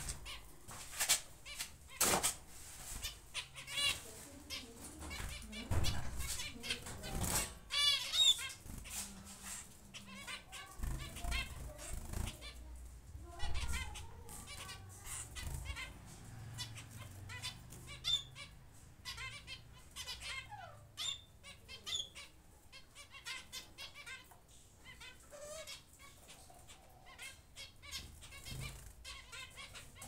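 Diamond doves moving and fluttering in a wire cage: scattered wing flaps, clicks and rustles, with a few bursts of rapid high chirping from small birds, clearest about eight seconds in.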